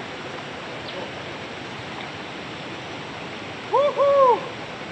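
Steady rush of a shallow, rocky river. Near the end, two short rising-and-falling hooting calls sound over the water, louder than the river.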